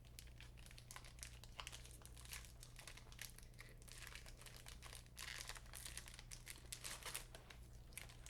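Faint crinkling of a plastic trading-card pack wrapper being handled and torn open: a run of quick crackles, busier from about five seconds in.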